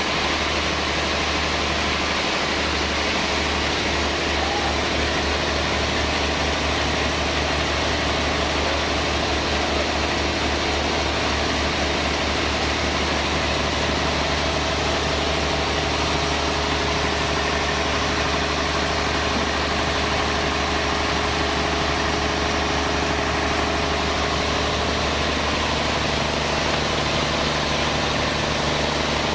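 Sawmill machinery running steadily: a constant mechanical hum with several steady tones, which shift slightly near the end.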